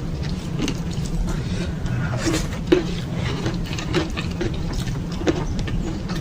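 Close-miked chewing with wet mouth clicks and smacks, several a second, over a steady low hum.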